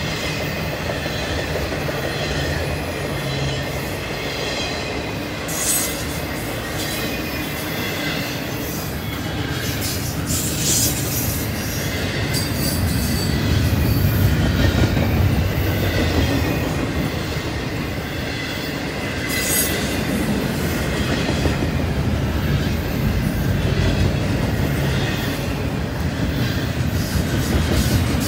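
Norfolk Southern double-stack intermodal freight cars rolling past with a steady rumble of steel wheels on rail. High-pitched wheel squeal comes and goes over it, along with an occasional sharp click.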